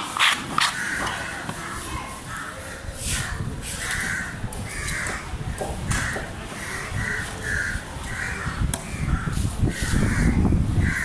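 Crows cawing over and over, a long run of short calls. A few sharp knocks of a cleaver on a wooden chopping block, several within the first second and one more later.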